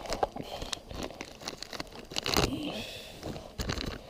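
Crinkling, rustling and small clicks of fishing tackle being handled while a lure is changed, with a louder handling noise about two seconds in.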